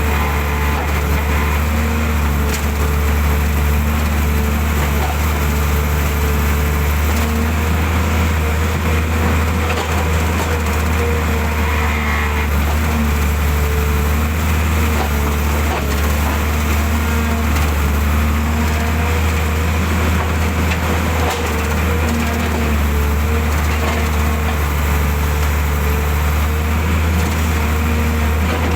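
Excavator's diesel engine running steadily at working speed as it digs, a constant low hum with slight wavering in pitch.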